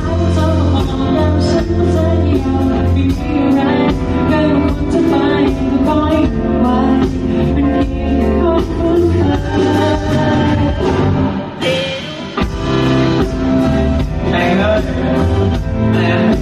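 Live band playing with a singer: a steady beat and heavy bass under a sung melody, with a brief lull about twelve seconds in.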